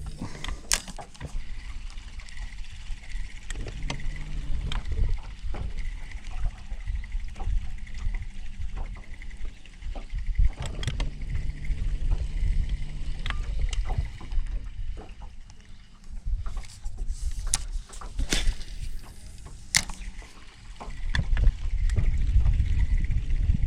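Open-air sound on a small fishing boat: a low rumble of wind and water that swells and fades, with scattered sharp clicks and knocks from gear against the hull.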